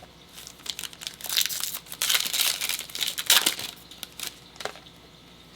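Foil trading-card pack wrapper being crinkled and torn open: a run of crackly rustling about four seconds long, loudest in the middle, dying away near the end.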